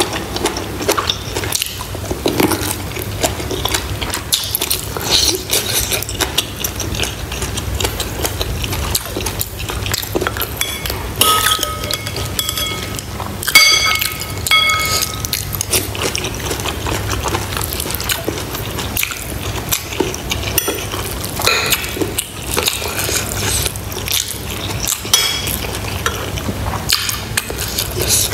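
Close-miked eating of pork bone soup: wet chewing, sucking and slurping sounds throughout. In the middle a metal spoon clinks against a ceramic bowl several times and rings briefly.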